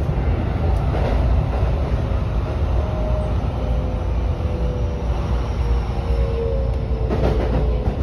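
Keikyu commuter train running, heard from inside the car behind the cab: a steady low rumble of wheels on rails, with a faint motor whine that slides slowly lower in the second half. A knock comes about a second in and a short clatter near the end.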